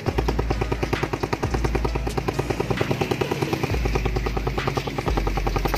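Suzuki Raider 150's single-cylinder four-stroke engine idling through a Charama9 open aftermarket muffler with its silencer insert still fitted: a fast, steady putter of exhaust pulses.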